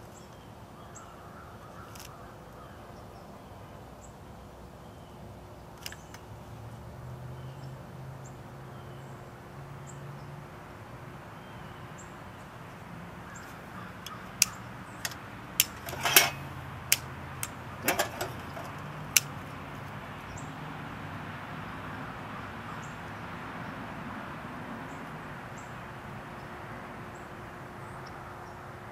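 A lighter being struck again and again to light paper in a rocket stove's fuel door: about eight sharp clicks over five seconds, starting about halfway through, over a steady background.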